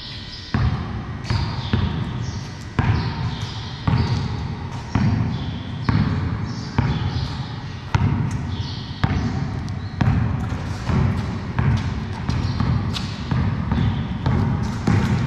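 Basketball dribbled on a concrete floor, bouncing about once a second, with each bounce echoing in the large, hard-walled garage.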